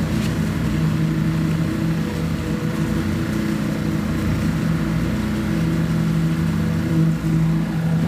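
A heavy engine of concrete-pouring equipment running steadily, a low even drone with a brief dip about seven seconds in.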